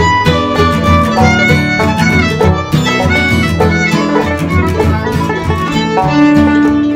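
Bluegrass instrumental break: a fiddle bowing a quick melody over strummed guitar and string-band backing.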